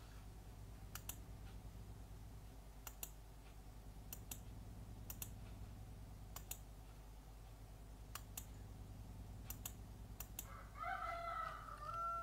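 A rooster crowing faintly near the end, one drawn-out call of about two seconds that falls away at its close. Before it come faint clicks in pairs, every second or so.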